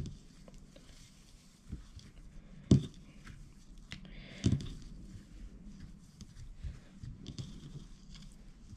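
Hands rustling and pulling apart strands of nautical rope, rearranging them against a wreath form, with scattered small clicks and two sharper taps, one near three seconds in and one about halfway through.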